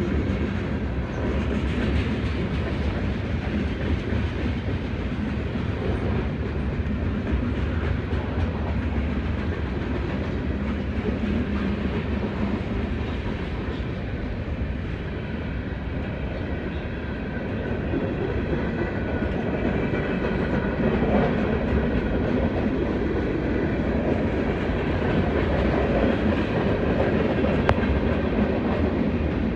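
Freight cars (flatcars, covered hoppers and tank cars) rolling steadily past: a continuous rumble of steel wheels on rail, a little louder in the second half.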